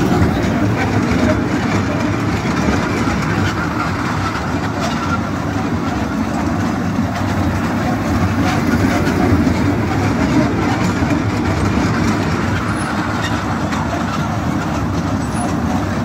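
Small fairground kiddie train running steadily around its circular track, heard from on board: a continuous noise of the cars' wheels rolling over the rails and the drive motor, with voices around it.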